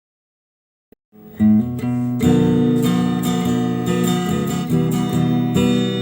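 Silence for about a second, a brief click, then a song's intro starts with strummed guitar, loud from the first beats.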